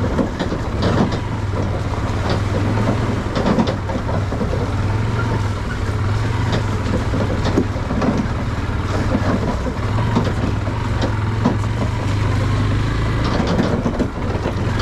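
AKT TTR 200 trail motorcycle's 197 cc engine running steadily while being ridden over a rough dirt track, with frequent knocks and rattles from the bike over the rough ground.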